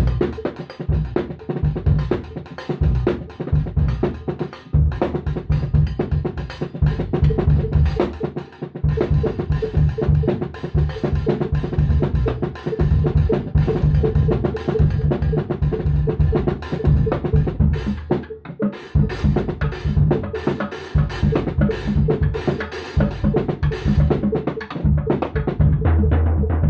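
A cheap, poor-sounding drum kit played continuously, with bass drum, snare, rimshots and cymbals in busy rhythms.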